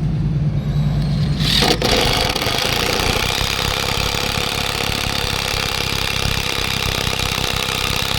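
A steady low hum, then about a second and a half in a motor starts up and keeps running with a loud, even mechanical whir.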